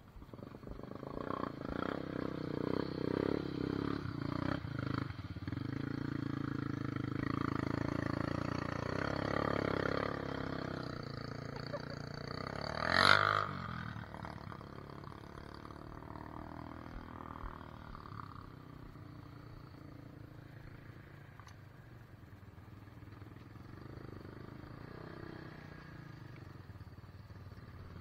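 Off-road vehicle engines revving and running at a mud hole, loudest for roughly the first ten seconds, then settling to a quieter steady running. A brief, sharp, loud burst comes about halfway through.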